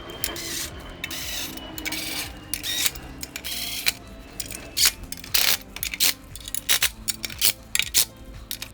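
Ratchet wrench clicking as the clutch pressure plate's 10 mm bolts are snugged down a little at a time, with a run of short, separate sharp clicks through the second half.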